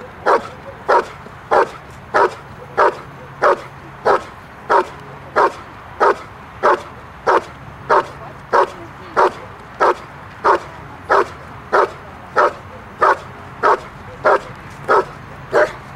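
A dog barking steadily and rhythmically, about one and a half barks a second, guarding a helper cornered in the blind: the hold-and-bark stage of a Schutzhund protection routine. The barking stops near the end.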